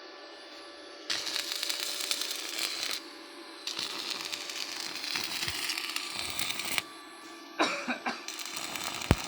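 Stick (arc) welding: the electrode's arc crackling and sizzling in three runs of two to three seconds each, over a steady low hum.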